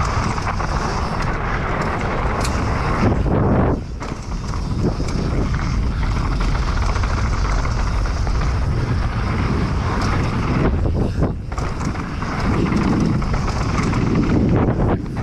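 Specialized Demo downhill mountain bike ridden along a dirt trail: a steady rough rumble of tyres and bike rattle, easing briefly about four seconds in and again around eleven seconds.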